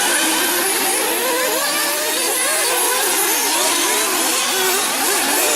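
Several 1/8-scale nitro buggies' small two-stroke glow engines revving up and easing off as the cars race around the track, their pitches rising and falling over one another, over a steady high hiss.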